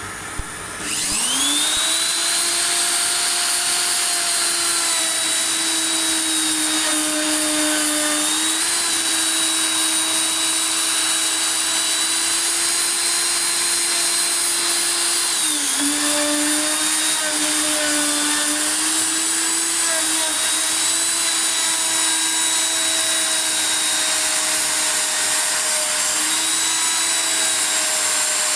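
Parkside POF 1200 C2 plunge router switched on about a second in, its motor spinning up to a steady high whine. The pitch sags briefly twice, as the bit takes load cutting into the wood.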